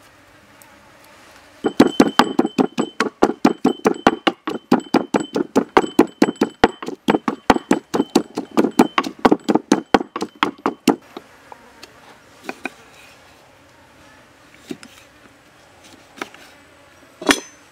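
Wooden pestle pounding garlic and red chilies in a wooden mortar, a steady run of dull thuds at about four strokes a second for some nine seconds, then it stops. A few light knocks follow, and near the end a knife cuts through a lime onto a wooden chopping block with one sharp knock.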